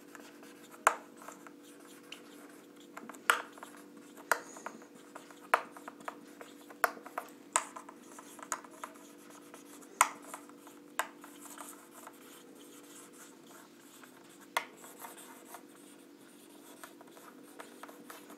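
Marker pen writing on a whiteboard: irregular sharp taps and short strokes of the tip against the board, over a faint steady hum.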